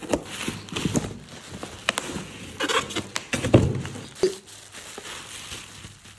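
Cardboard carton and bubble wrap being handled as a wrapped fry-pan box is pulled out: cardboard scraping and bubble wrap crinkling in irregular clicks and rustles. A dull thump comes about three and a half seconds in, and the handling grows quieter near the end.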